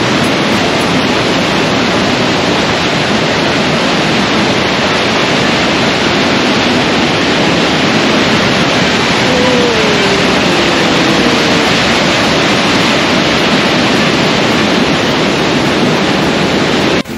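Loud, steady rush of a swollen mountain stream in high flow, a dense, even sound of running water that stops suddenly near the end.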